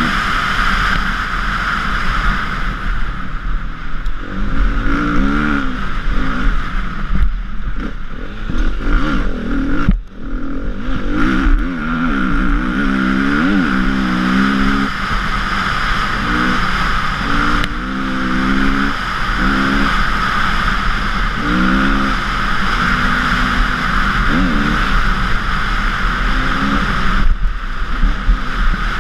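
KTM EXC 350 four-stroke single-cylinder dirt bike engine at race pace, its note rising and falling again and again as the throttle is worked through the gears, over a steady rushing noise. The engine note drops away briefly about ten seconds in.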